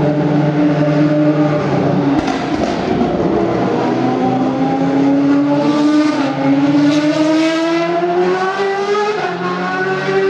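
Historic single-seater racing car engine running at a steady pitch, then, after about two seconds, a race car accelerating hard, its engine note climbing steadily and dipping briefly at gear changes.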